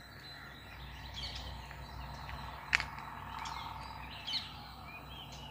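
Small birds chirping and calling over and over, short quick notes, against a steady low background hum. A sharp click sounds a little past the middle.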